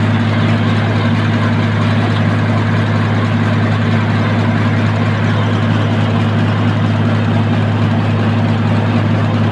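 Tractor-driven sawmill running, a steady low engine drone that does not change.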